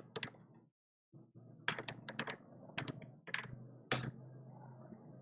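Computer keyboard being typed on: faint, quick keystroke clicks in short bursts, most of them between about one and a half and four seconds in.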